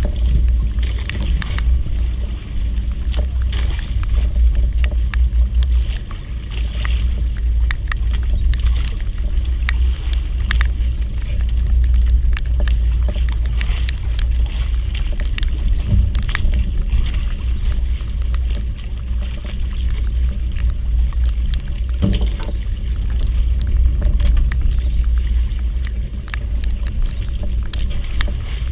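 Small fishing boat's motor running steadily, a constant low rumble with scattered sharp ticks throughout.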